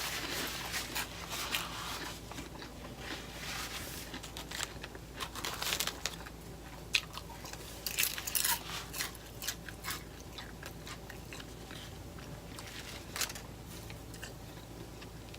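A person chewing and crunching food close to the microphone, with irregular crunches that thin out after about ten seconds.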